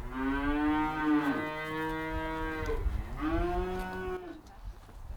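Cattle mooing: one long moo, then a shorter second moo.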